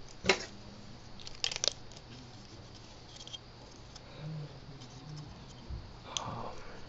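Plastic Lego pieces handled on the model: a sharp click just after the start, a quick pair of clicks about a second and a half in, and another click near the end.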